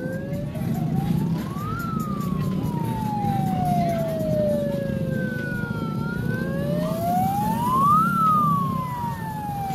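Emergency-vehicle sirens on a slow wail. The main tone rises for about two seconds and falls for about four, then climbs again near the end. A fainter, higher siren glides out of step with it, over a steady low rumble.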